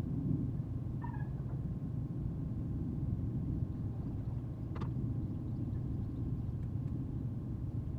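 Steady low rumble of outdoor background noise, with a brief high falling call about a second in and a single sharp click near the five-second mark.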